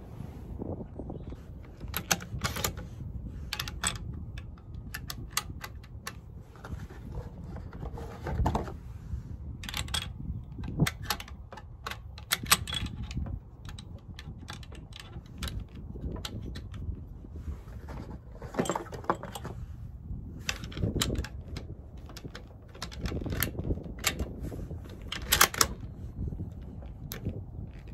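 A series of irregular metallic clicks as brass .375 H&H cartridges are pressed into the magazine of a stainless Winchester Model 70 bolt-action rifle. The loudest click comes about 25 seconds in as the bolt is worked, over a low wind rumble on the microphone.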